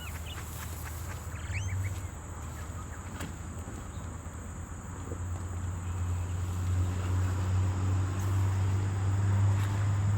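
Low, steady motor hum that grows louder about halfway through, over a steady high insect drone, with a brief bird call early on.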